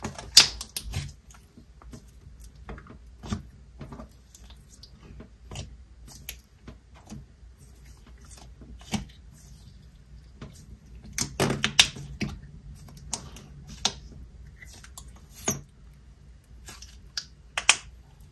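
Thick jelly slime being pressed and poked in its plastic tub, then pulled out and stretched by hand, giving scattered sticky clicks and squelches. A denser run of louder clicks comes about eleven to twelve seconds in.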